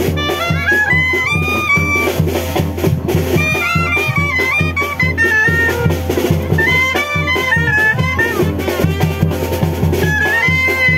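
Band music: wind instruments play a stepping melody over a steady drum beat.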